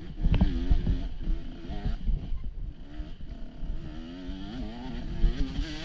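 Dirt bike engine running under uneven throttle, its pitch rising and falling quickly over and over, with low thumps near the start.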